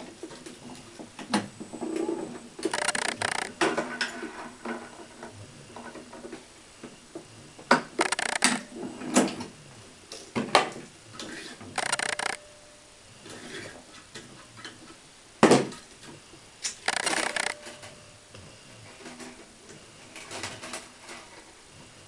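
Tennis racket string being pulled through the frame's holes in short swishes, mixed with sharp clicks and knocks from the stringing machine's clamp and turntable as the string is handled, clamped and tensioned.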